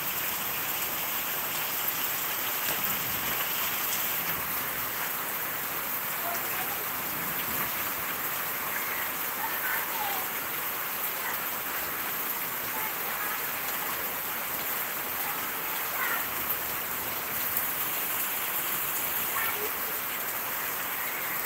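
Heavy rain pouring steadily onto pavement and leaves, an even, unbroken hiss.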